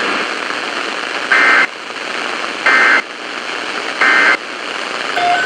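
Three short bursts of EAS SAME data tones, a warbling two-tone buzz about a third of a second each, spaced a little over a second apart, over steady radio static. Bursts this short are typical of the end-of-message code that closes an alert.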